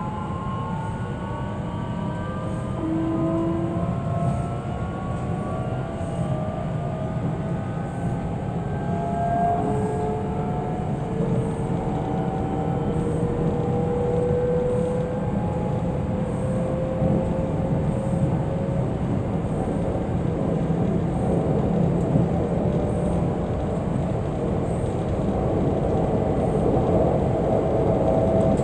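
Interior sound of a DB Class 442 (Bombardier Talent 2) electric multiple unit accelerating. Several whining traction tones rise slowly in pitch through the first half over a steady rumble of the wheels on the track, then fade into the rumble, which grows a little louder near the end.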